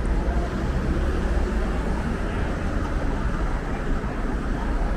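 Steady city road traffic: car and vehicle engines and tyres passing on a busy street, with a constant low rumble.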